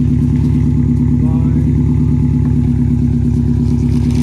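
Vehicle engine running steadily with an even, rapid pulsing.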